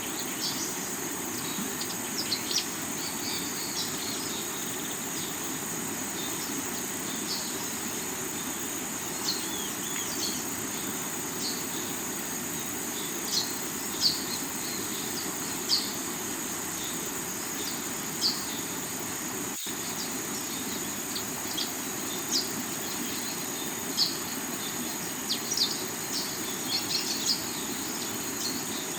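River water rushing steadily over rocks, with a constant high insect trill and short bird chirps scattered throughout. A split-second dropout falls about twenty seconds in.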